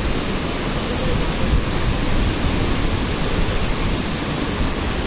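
Steady, loud rush of a fast mountain river's white water.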